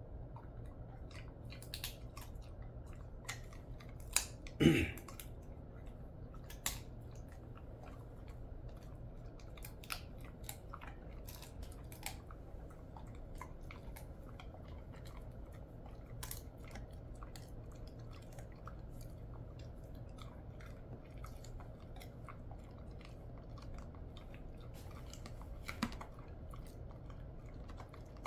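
A Jindo dog chewing a dried elephant fish tail treat, with scattered small crunches and clicks. About four and a half seconds in, a short, louder sound sweeps down in pitch, and a fainter one comes near the end.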